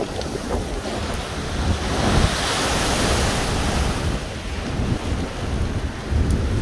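Storm waves breaking heavily against a seafront promenade, with a surge of crashing water and spray about two seconds in that lasts a couple of seconds. Strong wind buffets the microphone, adding a low rumble throughout.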